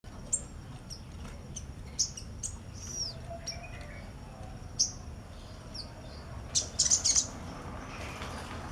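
Little spiderhunter (sogok ontong) calling with a series of short, sharp, high chirps, and a quick rapid cluster of them near the end.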